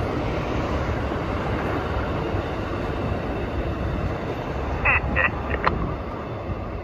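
Amtrak passenger train's last cars rolling away along the track, a steady rumble of wheels on rail slowly fading. A few short, high squeaks come about five seconds in.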